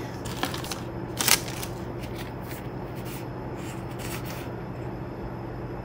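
Pokémon trading cards and booster packs handled by hand: a few short swishes and rustles in the first few seconds, the loudest about a second in, as cards are slid and flipped through.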